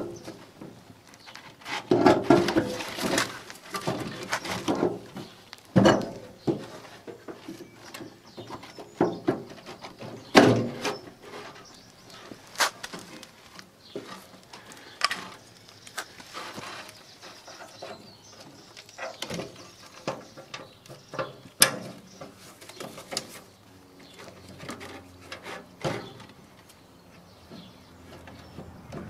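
New plastic brush segments being handled and fitted onto a powered grass collector's brush drive shaft: irregular clicks, knocks and brief rubbing as the pieces are pushed into place.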